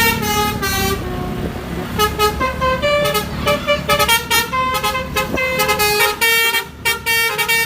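A bus's 'basuri' telolet horn plays a tune of stepped notes, some short and some held, over the steady low noise of the bus's engine.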